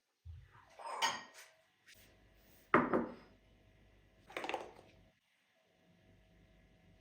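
A few separate knocks and clatters of household objects being handled and set down, the sharpest and loudest about three seconds in.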